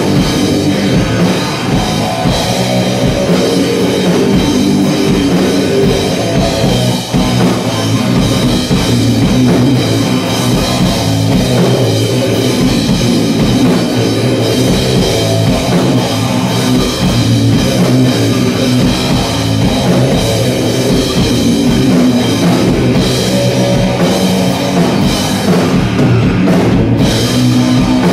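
Live heavy instrumental rock: electric guitar playing riffs over a drum kit, loud and continuous with a steady beat.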